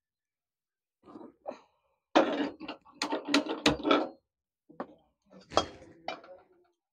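Aluminium cooking pots and a metal ladle clinking and clattering as they are handled: a quick run of knocks starting about two seconds in, then a few single clinks near the end.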